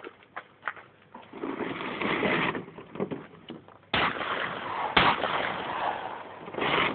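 Two shotgun shots about a second apart, each sudden, with loud noise lingering after them. A rushing noise swells for about a second shortly before the shots.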